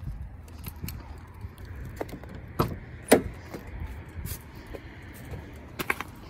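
Ford Mustang GT driver's door being unlatched and swung open: a sharp click about three seconds in, among lighter clicks and rattles, over a low steady rumble.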